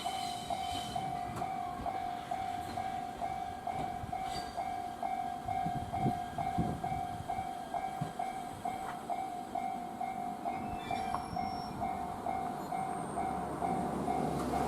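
Japanese railway level-crossing alarm ringing, an even electronic clang repeating about two to three times a second, over the low rumble of a train.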